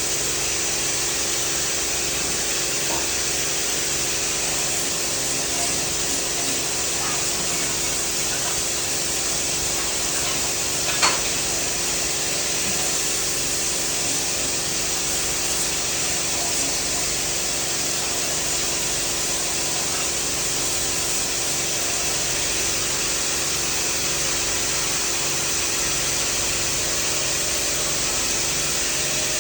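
Welding arc running steadily on pipe: a continuous hiss with a steady low hum underneath, and one sharp click about eleven seconds in.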